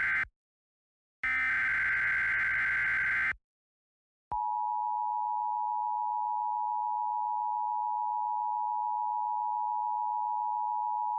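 Emergency Alert System SAME header: the end of one screeching digital data burst, then a second burst of about two seconds. After a short pause comes the EAS two-tone attention signal, a steady dual tone of 853 and 960 Hz held for about eight seconds, which announces the start of a new alert.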